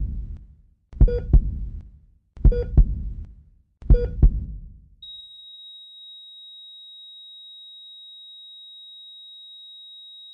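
Heartbeat sound effect: four heavy double thumps, lub-dub, about a second and a half apart, then a steady high-pitched beep held from about five seconds in, like a heart monitor flatlining.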